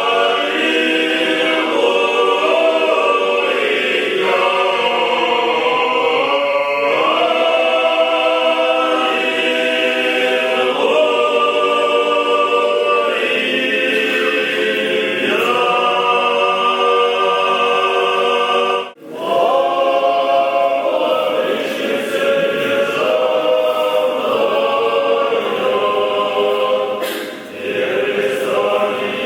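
Church choir singing Orthodox liturgical chant a cappella, in held chords that move from one to the next every few seconds, with a brief break about two-thirds of the way through.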